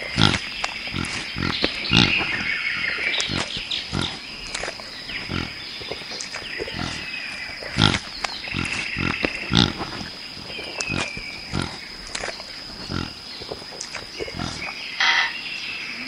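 Animal calls: many short, low sounds at an irregular pace, with higher squeaky calls among them, over a steady high-pitched tone. A brief louder call comes near the end.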